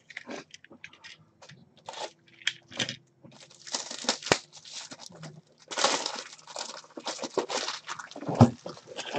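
Plastic crinkling and rustling as a pack of 180-point card holders is rummaged for and handled, in irregular bursts with short pauses, and a sharp knock near the end.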